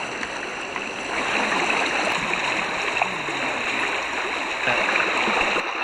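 Stream water rushing over a shallow, rocky riffle: a steady wash of running water that gets louder about a second in.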